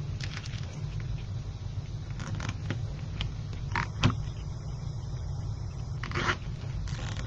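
Short rustles and scrapes of black deco mesh being tucked and pulled between the pins of a wreath-making board, with a sharp click about four seconds in, over a steady low hum.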